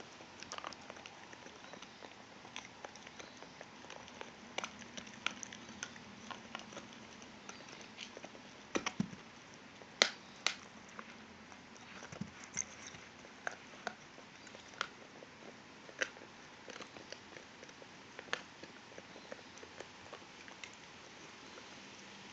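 Two dogs gnawing on elk antlers: their teeth scrape and click on the hard antler in irregular sharp clicks, with a couple of louder knocks near the middle.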